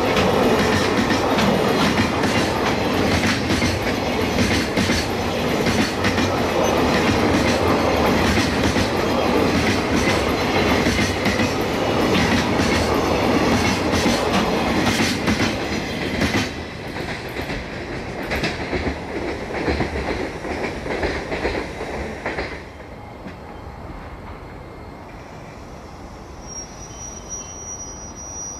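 Freight train of container wagons rolling past, the wheels clattering over rail joints. The clatter thins out about sixteen seconds in as the last wagons pass, then fades away over several seconds.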